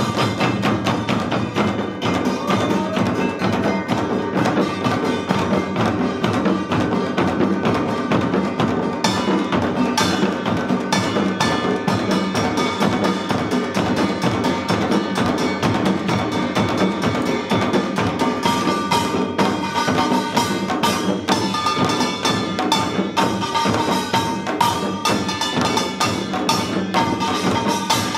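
Samul nori ensemble of janggu hourglass drums and buk barrel drums playing a fast, dense rhythm, with the ringing of small gongs over the drumming.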